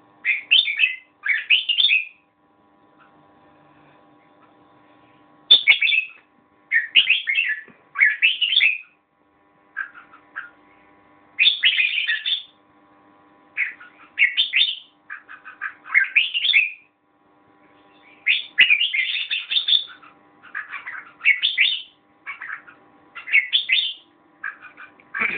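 Red-whiskered bulbul singing short warbling phrases, each about half a second to a second long, repeated with pauses of one to three seconds and a longer run of phrases in the second half.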